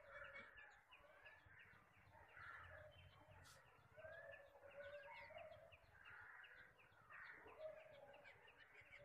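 Near silence with faint bird chirps and calls in the background. No spray-gun hiss is heard.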